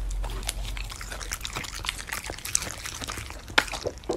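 A Samoyed chewing a piece of beef steak: a quick string of wet smacks and clicks, the sharpest about three and a half seconds in.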